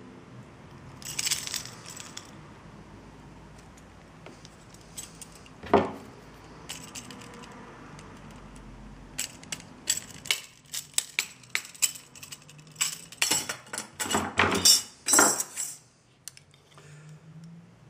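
Small metal parts of a car's accessory belt tensioner clinking and tapping on a desk, then, in the second half, a quick run of sharp clicks as a thin metal strip is cut with hand snips.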